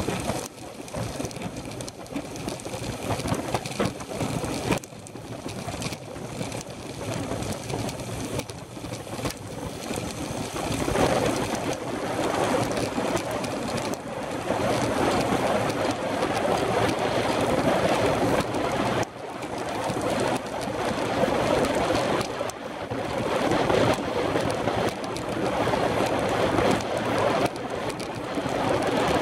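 Wind rushing over the microphone of a handlebar-mounted camera on a moving road bike, with tyre noise on tarmac, growing louder about eleven seconds in.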